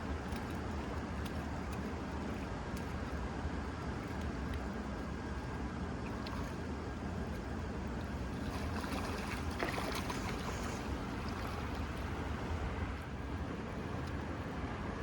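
Steady rush of a small trout stream's flowing water, with one short sharp sound a little under ten seconds in.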